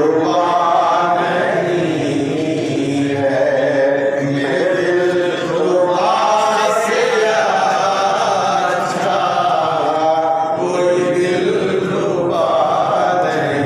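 Many men's voices chanting together in a Sufi devotional chant, in long rising and falling sung phrases without instruments.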